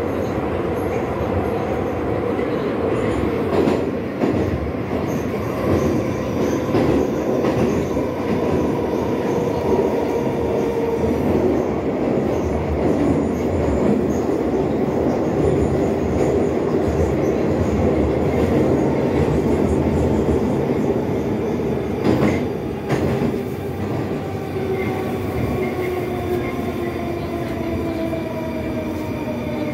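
Inside a car of an 81-740 articulated metro train running through a tunnel: a steady rumble of wheels on rail with the whine of the traction drive, and a few sharp knocks, two of them about 22 seconds in. Over the last several seconds the whine slides down in pitch as the train slows.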